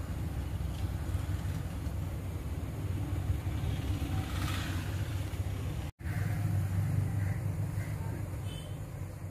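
Steady low background rumble with no clear pitch, cut off for an instant about six seconds in.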